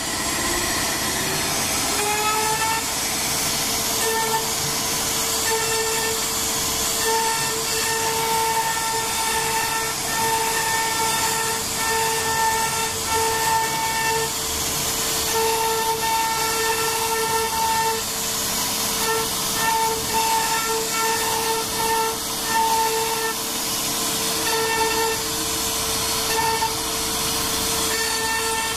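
CNC router spindle spinning up to a steady high whine over the first two seconds, then running as its bit carves walnut-faced particle board, with a constant hiss from the cut. A second, higher tone switches on and off in short stretches throughout.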